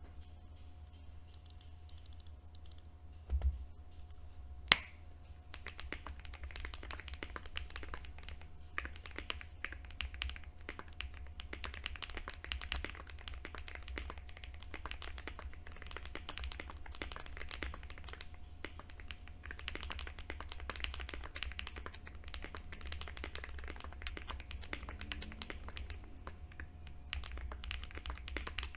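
Typing on a Glorious GMMK Pro mechanical keyboard with lubed Glorious Panda tactile switches, a polycarbonate switch plate and PBT keycaps: fast, steady key clacks. A few scattered key presses and one sharp, louder click come first, about four to five seconds in, before continuous typing starts.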